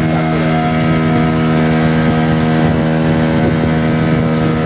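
Small passenger boat's engine running at a steady speed while under way, a constant drone that holds one pitch.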